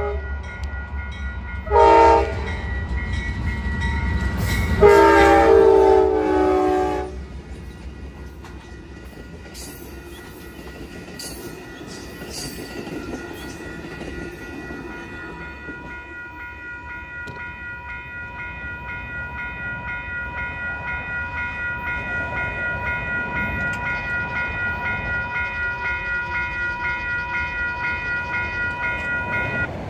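Amtrak passenger train's locomotive horn sounds a short blast, then a long one, for the grade crossing. The train's cars then rush past over the rails, and a crossing bell rings steadily, heard more clearly once the train has gone by.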